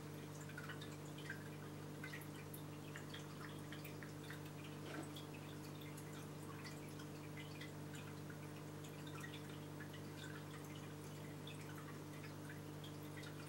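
Saltwater aquarium equipment running: a steady low pump hum under faint, irregular drips and trickles of water.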